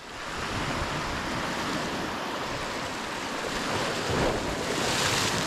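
Sea surf washing against a rocky shoreline, with wind rumbling on the microphone. The sound fades in at the start, and a wave washes up louder about four seconds in.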